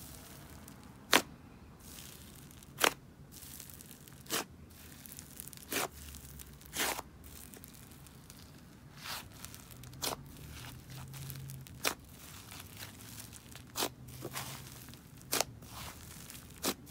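Inflated, clay-heavy butter slime being pressed, spread and folded by hand, giving irregularly spaced sharp pops and crackles as trapped air escapes: the sizzles typical of this slime.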